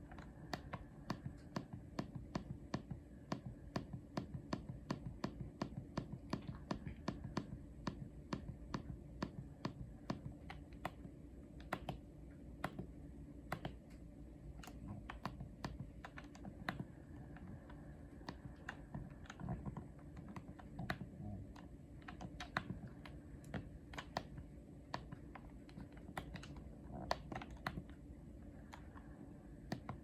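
Buttons on a Yanmar air-conditioner wired remote controller clicking as they are pressed over and over to step through its menus and settings. The presses come several a second at first and grow sparser about halfway through.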